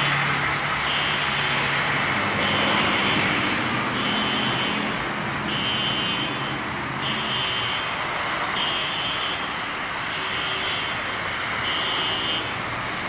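Loud street traffic noise with a low engine hum, and a high electronic beep that repeats about every second and a half.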